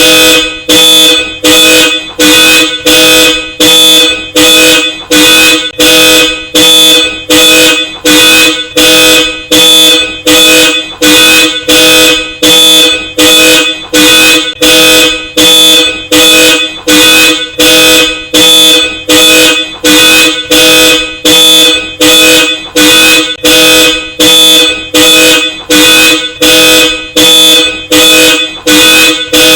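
Car alarm blaring through a Hella Supertone dual-tone horn: loud, evenly spaced honks a little more than one a second, each pulse the same steady two-note chord.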